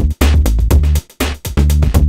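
Background music: electronic track with a steady, fast drum-machine beat and heavy bass.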